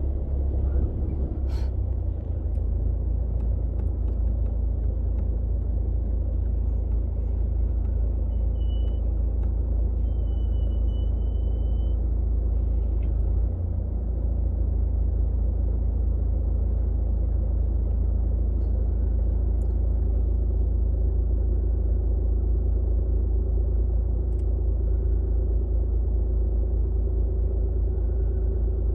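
Car engine idling while stopped in traffic, heard from inside the cabin as a steady low rumble.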